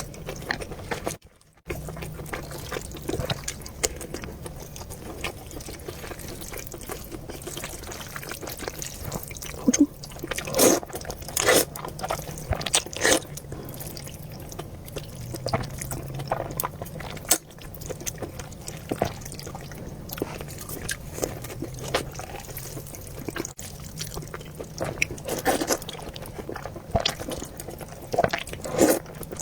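Close-up eating of noodle soup: wet slurping, chewing and scattered sharp clicks, over a low steady hum. The sound drops out briefly about a second in.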